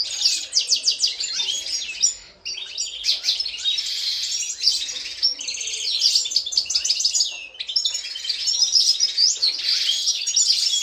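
Caged European goldfinches of the Algerian Constantine type singing: fast, continuous twittering with a brief pause about two seconds in.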